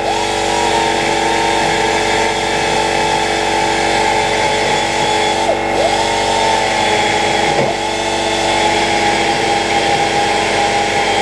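A small handheld electric power tool, such as a drill or rotary tool, runs steadily on a piece of metal. Its pitch dips briefly and recovers a few times as it is pressed into the work.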